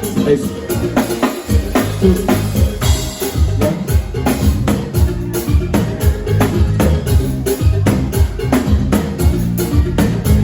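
A live band playing, with a drum kit keeping a steady beat over low bass notes.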